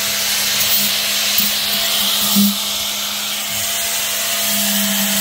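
Electric angle grinder with an abrasive disc running steadily while grinding down a wooden knife handle: a constant motor hum under a rasping hiss that swells slightly as the disc is pressed into the wood.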